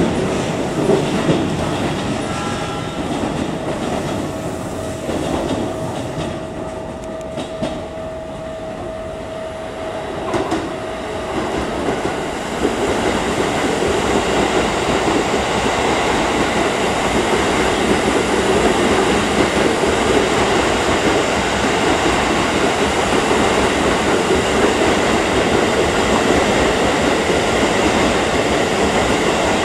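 Red Keikyu electric commuter trains running through the station. In the first half a steady tone is held for several seconds. About 12 seconds in, the sound grows louder and fuller as a long train runs close alongside the platform, its wheels running on the rails.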